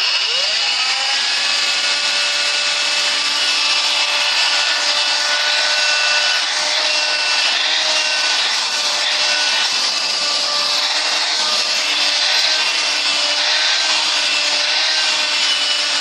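Electrolux ZB3010 18V cordless stick vacuum switched on, its motor spinning up with a rising whine in the first second and then running steadily at full speed, on its newly refilled lithium battery pack.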